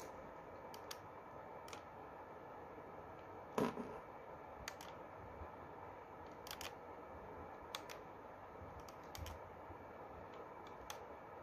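Scattered small clicks, about eight, with one louder knock about three and a half seconds in, over a faint steady hiss.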